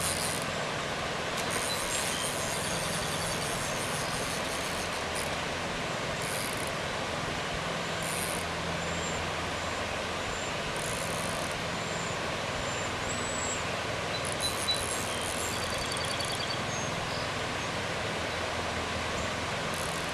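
Steady rush of a shallow creek flowing over rocky riffles.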